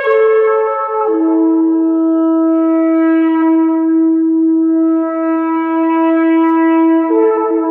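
A long shofar blast, one loud held tone. It steps down in pitch twice in the first second, then holds a low note steady, and near the end a second, higher note sounds over it.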